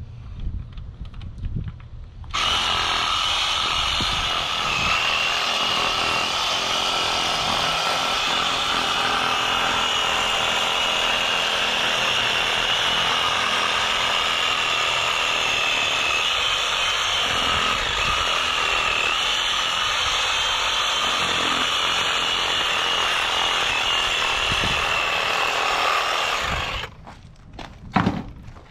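Reciprocating saw (Sawzall) running steadily as it cuts a pig carcass's ribs away from the spine. It starts about two seconds in and cuts off suddenly near the end.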